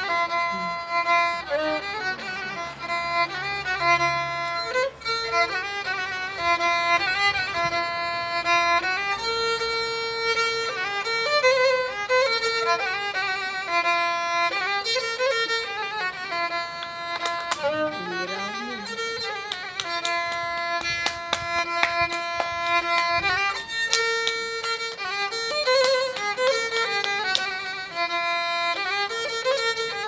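Solo violin improvising a Turkish folk melody, bowed in a continuous line of notes with wavering, ornamented turns.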